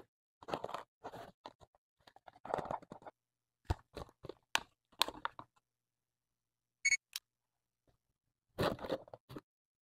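Plastic cup and cardboard toy drinks machine being handled: a run of short scrapes, rustles and sharp clicks, with a brief high tone about seven seconds in and a longer rustle near the end.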